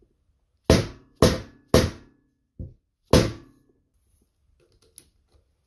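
Five hammer blows on a seal driver, tapping a new oil seal into the bearing carrier of a Mercury outboard lower unit. Four are loud and one is softer, and each has a short metallic ring.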